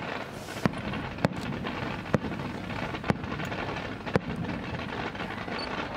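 Fireworks going off: five sharp cracks about a second apart over a steady hiss.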